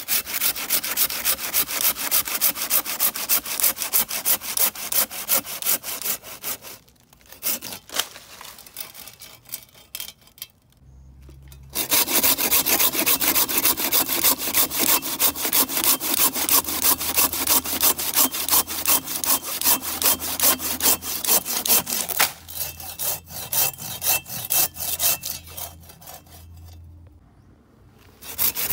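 Hand saw cutting through wood with quick, even back-and-forth strokes, about three or four a second. The sawing stops briefly a few times, twice near the middle and once near the end.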